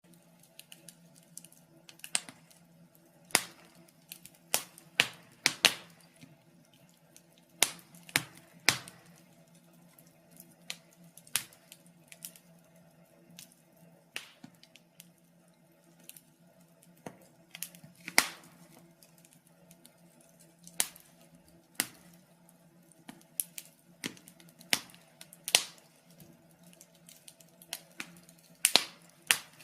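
Wood fire in a fireplace crackling, with irregular sharp pops and snaps of burning logs, some much louder than others, over a faint steady low hum.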